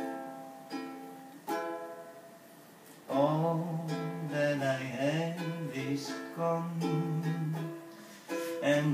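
Live acoustic song intro in a small room. Single strummed chords on an acoustic string instrument ring out and fade three times. From about three seconds in, a low wordless vocal melody with gliding pitch joins the plucked accompaniment.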